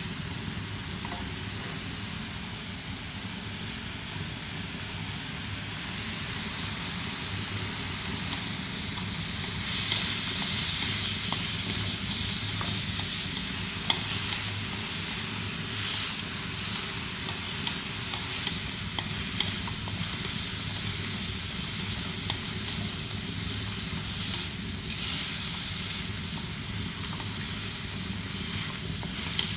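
Chopped wild bird meat sizzling as it is stir-fried in a steel wok, with the utensil scraping and clicking against the pan. The sizzle gets brighter and louder about ten seconds in.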